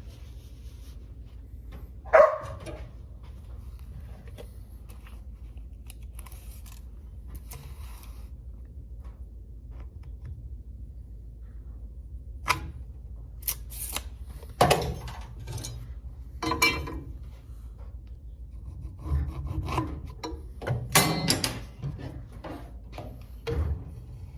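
Heavy oak planks being handled: scattered wooden knocks, clunks and scrapes, with one sharp knock about two seconds in and a busier run of knocks and rubbing in the second half.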